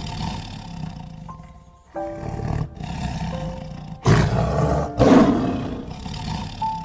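Tiger roaring several times, with the two loudest roars about four and five seconds in, over light background music.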